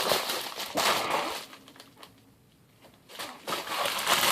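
Sticker sheets and packaging being handled, rustling and crinkling in two spells with a quiet pause of about a second and a half between them.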